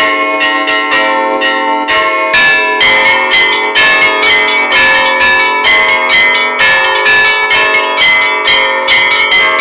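Russian Orthodox church bells ringing: many bells of different pitches struck in quick, rhythmic succession over the hum of the larger bells. The strikes of the small bells grow much denser about two seconds in.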